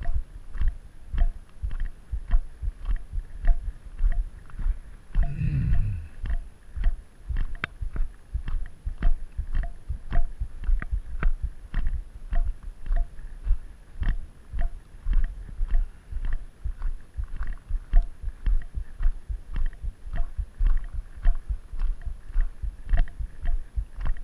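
Footsteps crunching on a gravel road at a steady walking pace, about two steps a second, with a light tick on about every second step. A brief low vocal sound comes in about five seconds in.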